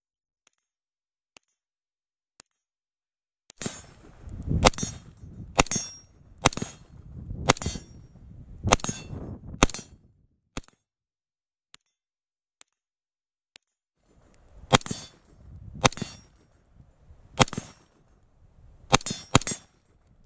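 Semi-automatic 5.56 AR-15 carbine (BCM 14.5-inch MK2) firing about nineteen shots, roughly one a second, with a quick pair near the end. Wind rumble on the microphone runs between many of the shots. The audio drops out in stretches, so several shots come through only as short, thin cracks with dead silence around them: a recording fault.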